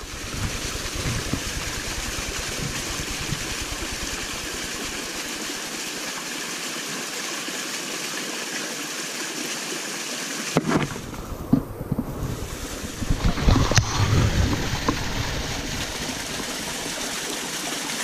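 Mountain stream running over rocks: a steady rush of water. About ten seconds in, a few knocks and rustles break through it.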